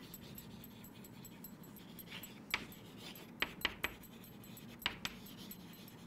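Chalk writing on a chalkboard: a few faint scratches and short sharp taps of the chalk against the board, some in quick succession, over a faint steady hum.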